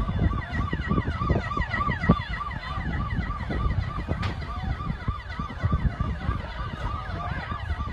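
Several emergency vehicle sirens sounding at once, one of them pulsing rapidly at about three times a second, over a loud, uneven low rumble.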